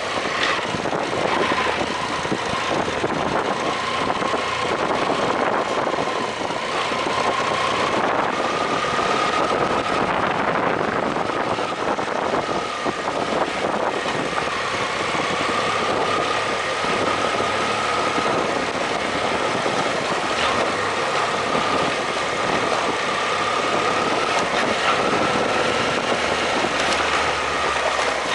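BMW F800GS parallel-twin engine running steadily under way, with a steady whine that wavers slightly in pitch over a constant noise.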